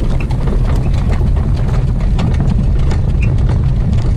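Heavy wind rumble on the microphone of a harness-race driver, over the irregular clatter of the racehorse's hoofbeats at speed.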